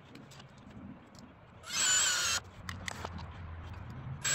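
Ryobi cordless drill driving a screw into a wooden tie of the miniature railroad track: a short whirring burst with a whine, lasting under a second, about two seconds in, and another starting at the very end.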